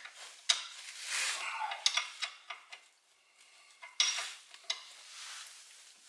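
Hand tools clinking and scraping against the front brake caliper and its bolts, with several sharp metallic clicks, about half a second in, near two seconds and at four seconds, between stretches of rattling.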